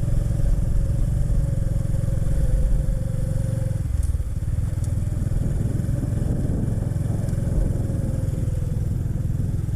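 Motorcycle engine running steadily while riding, with a heavy low rumble.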